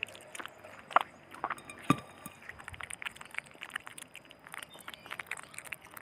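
Otter pup chewing chunks of raw giant gourami from a glass plate: a steady run of quick wet smacks and crunches, with two louder sharp clicks about one and two seconds in.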